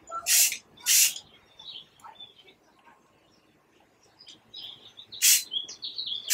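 Short hisses from an aerosol can of green camouflage spray paint, sprayed in quick bursts: two about half a second apart near the start and another about five seconds in. Birds chirp faintly in between.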